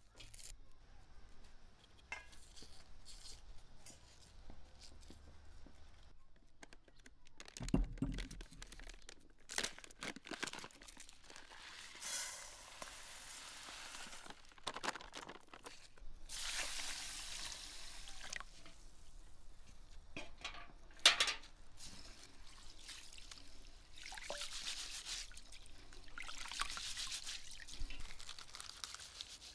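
Kitchen handling sounds: small crackles of dry onion skin being peeled by hand, then dry rice pouring in a hissing stream from a packet into an enamel bowl. After that the rice is rubbed and rinsed by hand in the bowl, with a few knocks and thumps on the wooden table in between.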